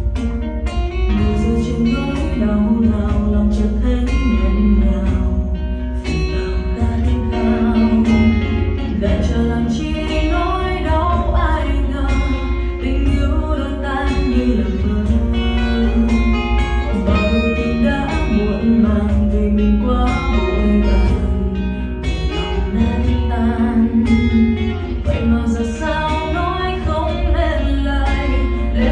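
A song with guitar, singing and strong bass played through a Harman/Kardon Onyx Studio 8 portable Bluetooth speaker as a listening test.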